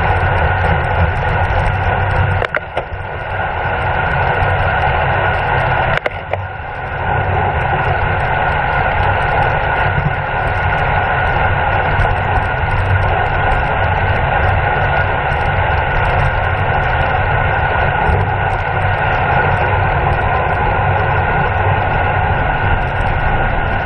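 Wind rushing over a bicycle-mounted camera's microphone while riding at speed: a loud, steady rush that dips briefly twice, each dip starting with a sharp click.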